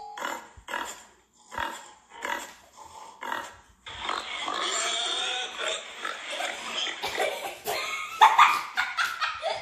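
Recording of a pig: a run of short grunts, about two a second, then a longer unbroken stretch of grunting with some sharper calls near the end.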